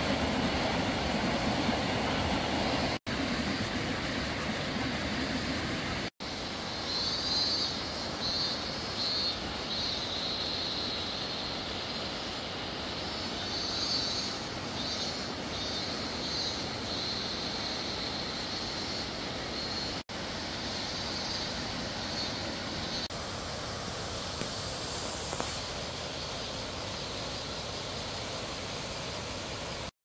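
Steady rushing outdoor background noise, with short runs of high-pitched chirping from about 7 to 17 seconds in and again around 21 to 23 seconds. The sound drops out briefly three times where the clips are cut.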